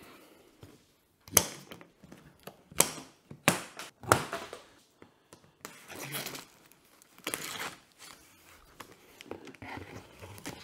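Cardboard shipping carton being opened by hand: irregular crinkling, scraping and tearing of cardboard and packaging, in sudden bursts with quieter handling between.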